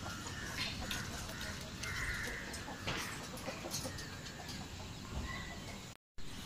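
Backyard chickens clucking in a rooftop coop, scattered short calls, with a brief dropout in the sound about six seconds in.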